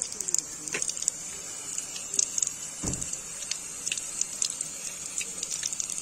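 Running water splashing in a stream: a steady high hiss with many small crackling splashes, and one dull thump about three seconds in.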